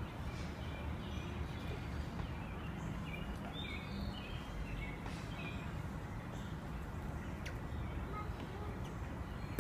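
Steady low outdoor background noise with faint, scattered high chirps, a few of them clustered about three to four seconds in.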